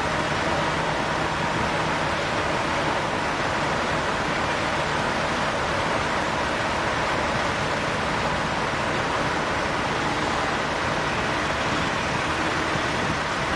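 Steady, unbroken wash of noise with a faint steady whine in it, typical of fire engines and their pumps running at a fire scene.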